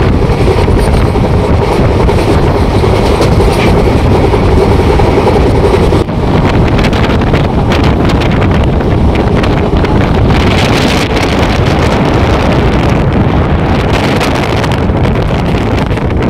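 Loud, steady running noise of a moving express train, with wind rushing over the microphone.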